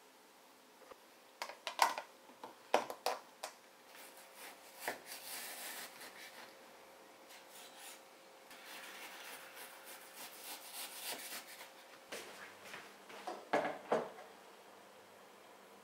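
Kitchen knife slicing frozen pork belly on a wooden cutting board: rasping, scraping strokes, with a few sharp clicks before them. Near the end, a couple of knocks as a plate is set down on a wooden table.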